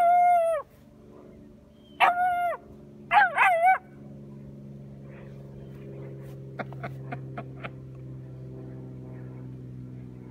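Puppy barking: one high bark, another about two seconds later, then a quick double bark, each holding its pitch and dropping at the end.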